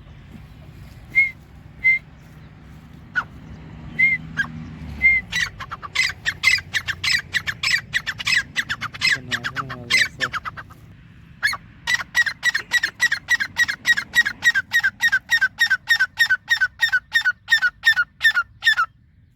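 Grey francolin calling: a few scattered single calls, then two long, fast series of shrill repeated calls at about four a second, with a short break between them.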